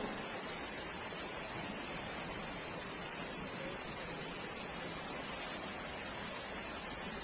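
Steady, even rushing of water from a street flash flood in heavy rain.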